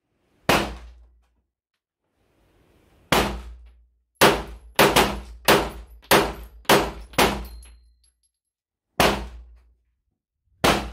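9mm Arex Delta M polymer-framed pistol firing. Two single shots come first, then a quick string of about eight shots in roughly three seconds, then two more single shots.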